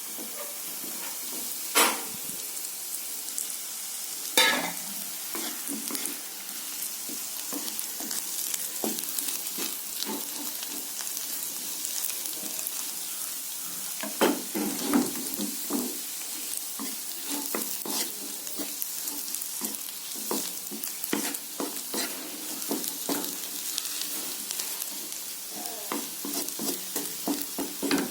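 Prawn pepper fry sizzling in hot oil in a pan while a spatula stirs and scrapes through it, with two louder knocks of the spatula against the pan in the first few seconds and a run of quick scrapes later on.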